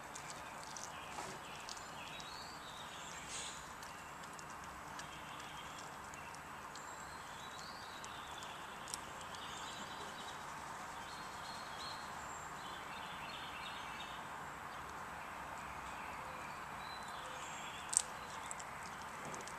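Greyhound eating raw chicken: scattered small chewing clicks over a steady background hiss, with one sharper click near the end.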